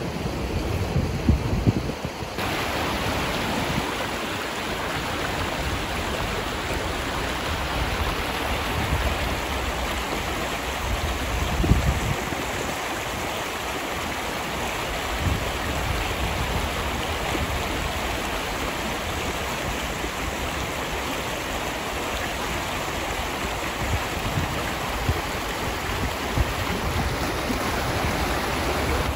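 Fast, shallow river water rushing over rocks in a riffle, a steady even rush from about two seconds in.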